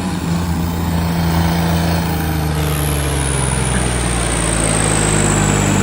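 Vehicle engine running steadily and loudly during a tractor-versus-car drag race. A thin high whistle starts about halfway through and slowly falls in pitch.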